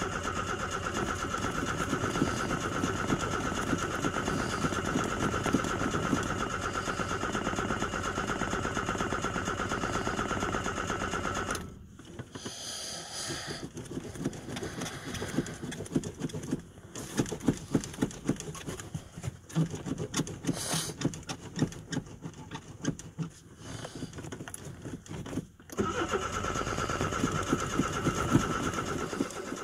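A vehicle's starter is cranking a cold engine with a steady, fast ticking for about eleven seconds. It stops, and a quieter stretch of irregular knocks and pops follows. Near the end the cranking starts again: a cold start that is not catching right away.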